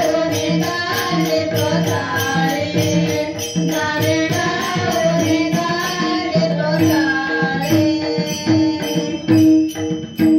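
A bhajan group singing a gaulan, a Marathi devotional song, over held drone notes. Small hand cymbals keep a quick, even beat that slows by half about midway, and a few loud drum strokes come near the end.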